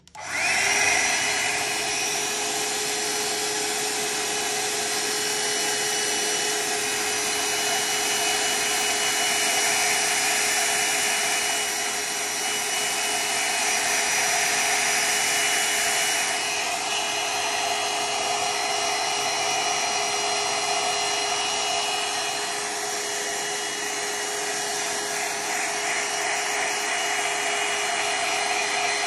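Hair dryer switched on and blowing steadily to dry a watercolour wash, with a steady whine over the rush of air. Its tone shifts slightly about halfway through.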